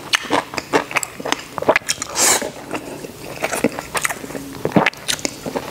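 Close-up eating sounds: chewing mouthfuls of food, with short sharp clicks of chopsticks against a stainless steel rice bowl. There is a brief scraping hiss a little past two seconds in.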